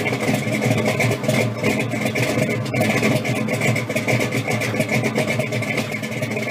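A car engine running at a steady idle.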